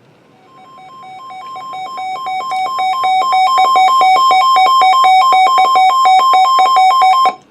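Weather alert radio's alarm going off for an incoming warning: a rapid two-tone electronic beeping, several beeps a second, that grows louder over the first few seconds, holds, and then cuts off abruptly.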